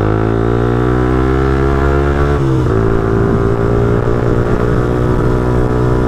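Suzuki GSX-R125 single-cylinder four-stroke engine pulling under acceleration, its pitch rising steadily for about two and a half seconds, then dropping sharply at an upshift and holding steady.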